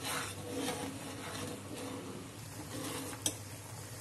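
Thick chickpea-flour chutney simmering in an aluminium pot while a steel ladle stirs it, with a single sharp knock about three seconds in.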